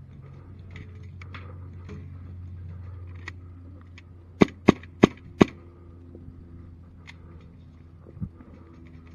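Airsoft pistol fired four times in quick succession, about three shots a second, with sharp snaps. Fainter snaps sound at other moments.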